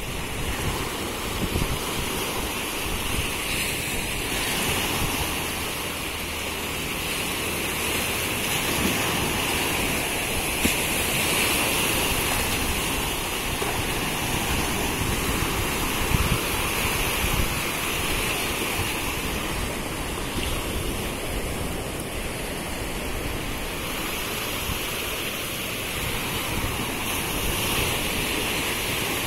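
Surf breaking and washing up a sandy beach: a steady rush of sea water that swells and eases with the waves.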